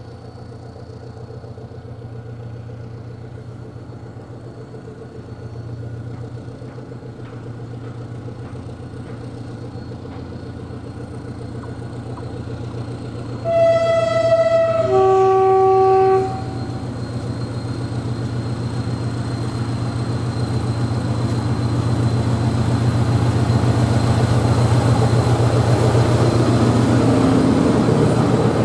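SM42 diesel locomotive approaching, its engine running steadily and growing louder. About halfway through it sounds its horn in two blasts of about a second each, a higher note then a lower one. Near the end it passes close, with a train of tank wagons rolling by.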